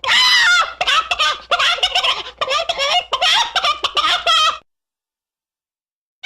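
Chicken clucking and squawking in a rapid run of short, pitched calls, cutting off abruptly about four and a half seconds in.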